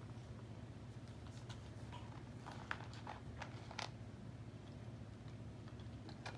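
Faint, scattered clicks and taps of plastic K'Nex pieces being handled and set down, over a steady low hum.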